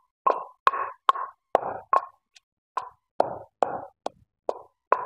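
Long wooden pestle pounding green chillies, mint and garlic with salt in a stone mortar: a steady run of strikes, roughly two to three a second.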